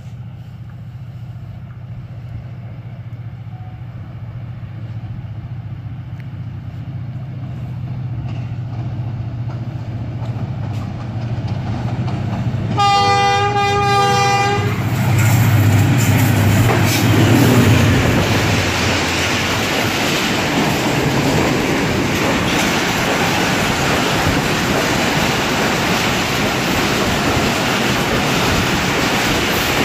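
ZCU-30 diesel-electric locomotive approaching with its engine drone growing steadily louder. About 13 s in it sounds one chord-like horn blast of nearly two seconds. Then the train passes at speed, with the loud, steady rush of its coaches going by.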